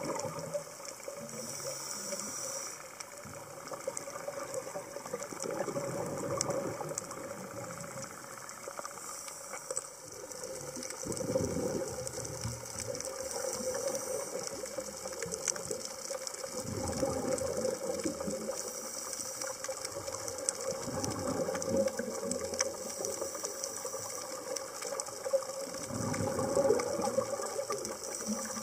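Scuba regulator breathing heard underwater: a short hiss on each inhale, then a crackling rush of exhaled bubbles, repeating about every five to six seconds.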